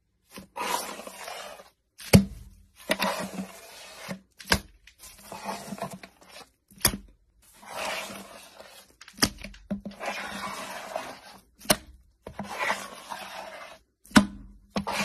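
Hand scraper pushed through a deep layer of sugar sprinkles and sprinkle-coated frosting: a rattling, hissing scrape in repeated strokes, with short breaks and a sharp click about every two and a half seconds.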